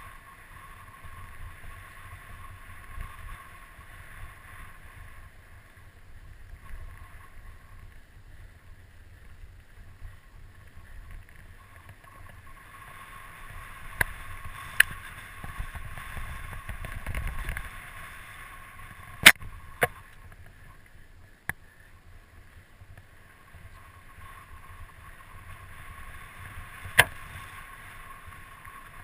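Mountain bike riding fast down a dirt and gravel singletrack, heard from a helmet camera: wind rush and rumble of the tyres, with several sharp knocks as the bike jolts over bumps, the loudest about two-thirds of the way through.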